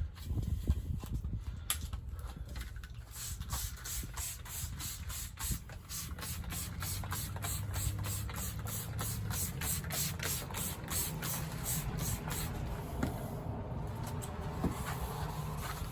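Rhythmic hand strokes rubbing over the painted body panel of a Corvette, about four scratchy strokes a second, typical of hand-sanding or wiping the finish during fine-grit paint correction. A low steady hum runs underneath.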